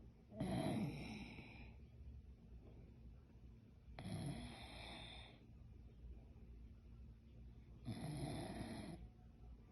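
An elderly woman snoring in her sleep: three rough snores about four seconds apart.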